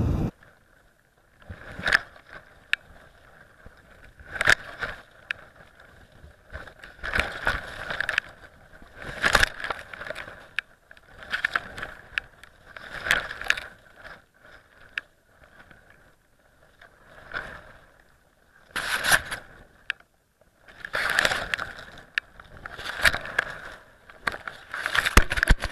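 Wind buffeting an action camera hanging from a flying kite: irregular bursts of rushing noise every second or two as the camera swings, with short clicks and knocks among them and brief quiet gaps.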